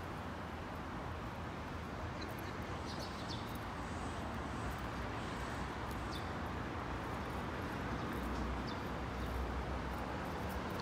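Steady railway-station background noise, with a few faint high chirps a few seconds in and a low rumble building near the end.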